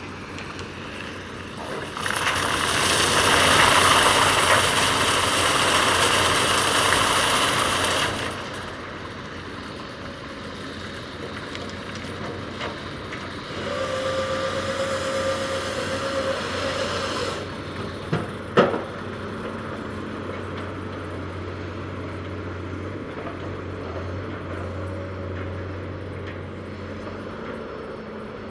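Heavy tracked logging machine running steadily, with a long loud hissing surge a couple of seconds in, a second shorter one with a steady whine in the middle, and a sharp click soon after.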